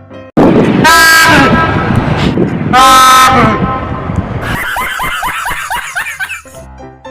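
Loud train horn blasting twice, about two seconds apart, over a rush of noise. After that comes a person's voice in quick falling cries, about four a second.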